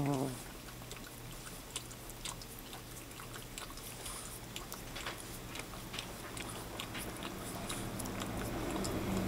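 Boston terrier licking yogurt off a metal spoon: irregular wet licking and smacking clicks. A low steady hum comes up near the end.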